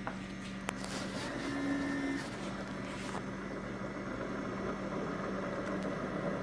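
Keurig K-Classic single-serve coffee maker starting its brew cycle: a steady electric hum under a rushing noise as the machine works. There is a click less than a second in and a brief higher tone at about one and a half to two seconds.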